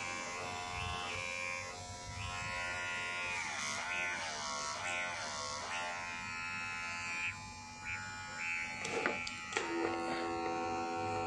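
VGR V118 cordless hair clipper running, a steady electric buzz of the motor and blade. Its pitch wavers in the middle, the hum dips about seven seconds in, and a few clicks come near the end.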